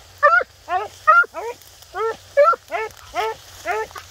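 Hounds barking in a rapid, steady run of high barks, about two to three a second, some louder and some fainter.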